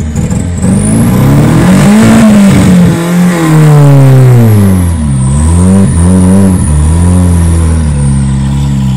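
Ford Fiesta's turbocharged engine driven hard, its revs climbing and dropping several times. A high turbo whistle rises with the boost, stays up, then falls away near the end.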